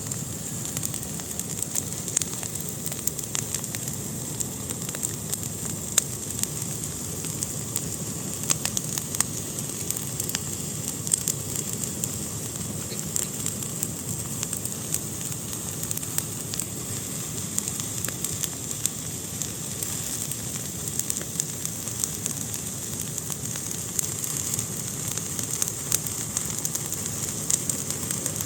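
Wood fire burning in a fireplace, crackling steadily with a soft rushing of flames and frequent sharp, irregular pops.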